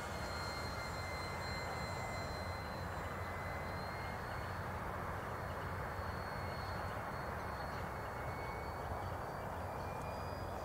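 Radio-controlled P-51 Mustang model airplane flying a high-speed pass, its motor and propeller giving a thin, steady high whine over a constant rush of noise. The whine drops slightly in pitch at the start as the plane passes and moves away.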